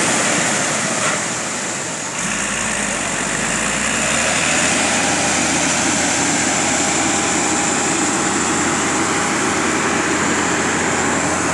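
Engines running steadily: a beach-launch tractor and a ski boat's twin outboard motors driving out through the surf, under the steady rush of breaking waves. The sound dips briefly about two seconds in, then holds steady.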